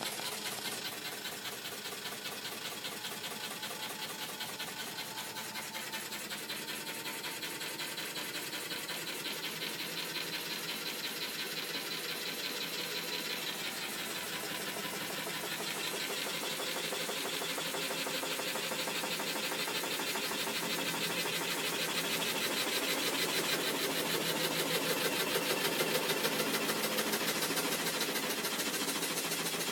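Hitachi DV-1200 running with a steady mechanical noise that pulses rapidly and evenly and grows gradually louder. The owner wonders whether it is an abnormal noise.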